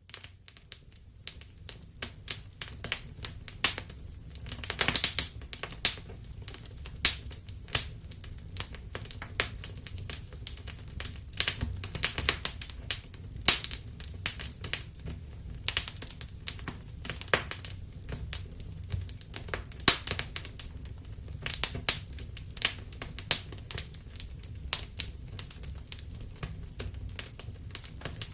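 Campfire wood burning, crackling and popping irregularly with occasional louder snaps over a low, steady rumble of the flames.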